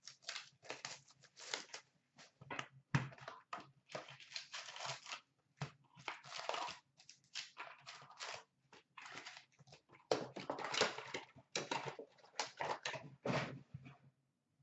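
Cardboard hobby box of Upper Deck hockey card packs being torn open and its foil-wrapped packs pulled out and handled: irregular bursts of tearing, crinkling and rustling.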